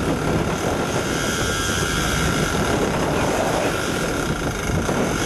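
Sportfishing boat's engines running steadily while trolling, a continuous drone mixed with wind and water noise.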